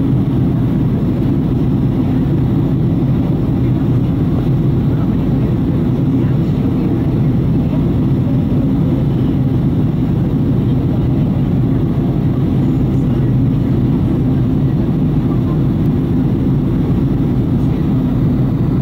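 Steady jet airliner cabin noise during the descent: an even, low drone of engines and rushing air, heard from inside the cabin beside the wing.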